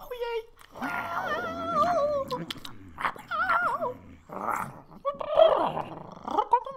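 Dog-like whimpering and growling: a string of short calls whose pitch wavers and wobbles, with brief gaps between them.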